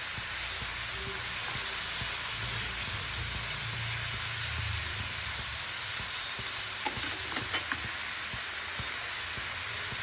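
Chopped onions, garlic paste and freshly grated ginger sizzling in hot oil in a pan, with a steady hiss, stirred with a wooden spatula.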